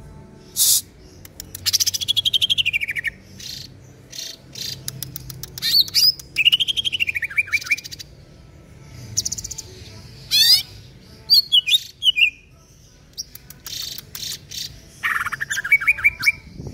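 Male greater green leafbird (cucak ijo) singing a loud, varied song in bursts with short pauses. Rapid chattering trills and clicks mix with whistled phrases that slide down in pitch.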